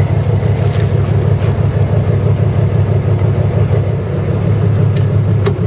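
Fishing boat's engine running steadily, a low hum, with a light click near the end.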